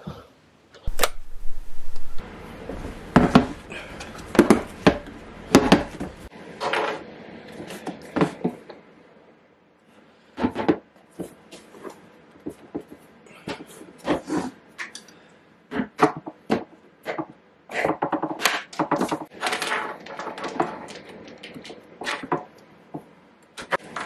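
Handling sounds of radio gear on a wooden table: a run of sharp clicks and knocks as a hard plastic carry case is opened and a small ham radio and its cables are lifted out and set down.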